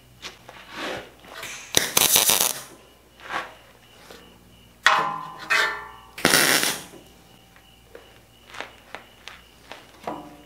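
Short bursts of welding-arc crackle as tack welds are laid on a steel fence frame, one about two seconds in and another just past six seconds, with a sharp metallic hit shortly before the second.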